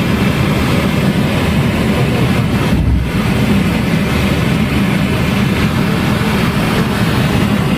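A steady, low engine rumble with no breaks.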